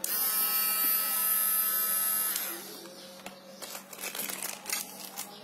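Mini rotary grinder's small electric motor switched on, running at speed with a high whine for about two seconds, then switched off and spinning down with a falling pitch. A few light clicks follow.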